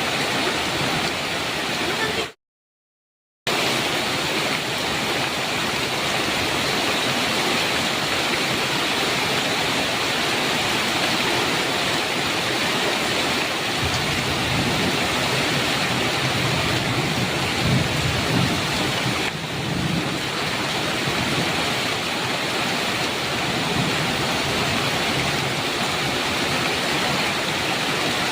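Heavy rain pouring steadily, with a low rumble of thunder rising through the middle and fading. About two seconds in, the sound cuts out to dead silence for about a second, then resumes.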